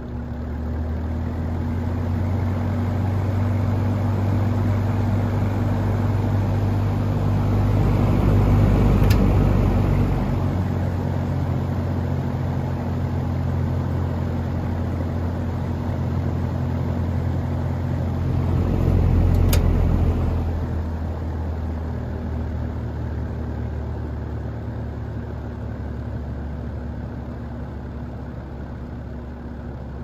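GE box fan running on high with its repaired motor: a steady motor hum under the rush of air from the spinning blade, swelling louder twice, about a third and two thirds of the way through.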